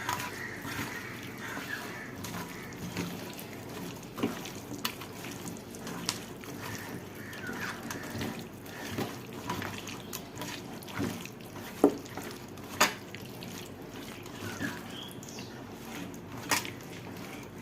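Raw chicken being mixed into a wet yogurt and spice marinade in a bowl: soft, wet squelching with a few sharp clicks scattered through it.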